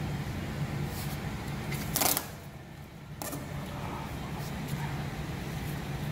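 Masking tape being pulled off the roll and pressed down on an inflatable boat tube, with a short, loud rip of tape about two seconds in and a few lighter crackles, over a steady low hum.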